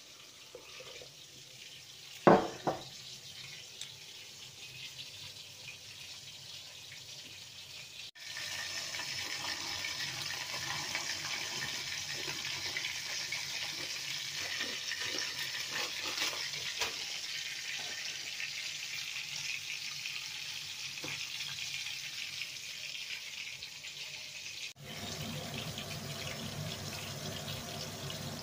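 Water boiling hard in a stainless steel pot of pasta: a steady, loud bubbling hiss. Before it, a quiet stretch with a single sharp knock about two seconds in. Near the end the bubbling gives way to a lower, fuller steady noise.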